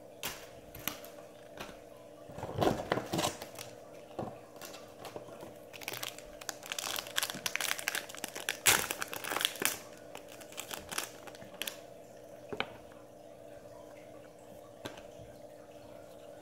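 Trading-card pack wrapper being torn open and crinkled by hand, in irregular bursts that are busiest around the middle, then tailing off to a few light clicks.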